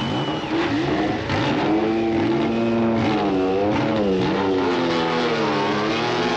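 Renault turbocharged V6 of a Lotus Formula One car running and being revved, its pitch dipping and rising several times in the second half as the car pulls away.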